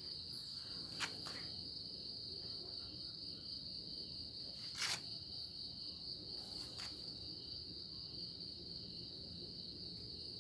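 A cricket's steady, high-pitched trill, with a few short clicks, the clearest about a second in and about five seconds in.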